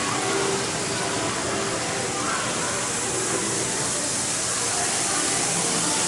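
N-gauge model train running along its track, a steady, even running noise, with faint voices in the background.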